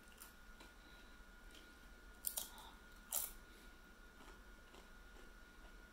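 A crisp snack chip crunching as it is bitten and chewed: two sharp crunches about two and three seconds in, with fainter chewing around them.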